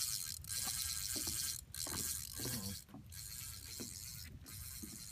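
Spinning reel's drag clicking fast as a hooked fish pulls line off, stopping for a moment several times and quieter in the second half, over a low rumble of wind on the microphone.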